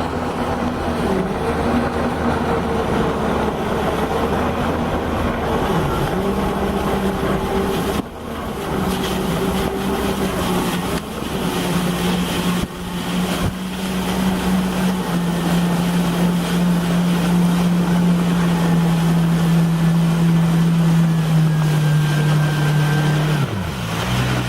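Yamaha VX Sport jet ski engine running under way over rushing water and wind, its pitch climbing in steps as the throttle opens and then holding steady at high speed. Near the end the engine note drops sharply as the throttle is released.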